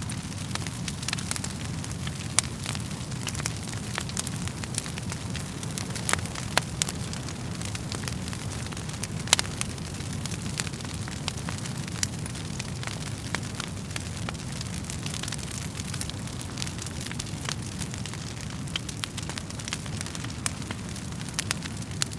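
Wood fire burning in a fireplace: a steady low rumble of flames with irregular crackles and sharp pops from the burning logs.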